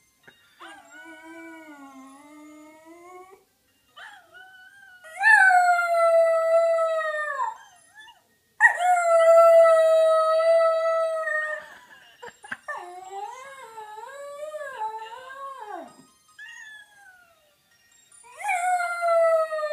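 Welsh terrier howling along with another dog's howls played from a phone: a series of long, drawn-out howls, the loudest about five and nine seconds in, with quieter wavering howls between and another starting near the end.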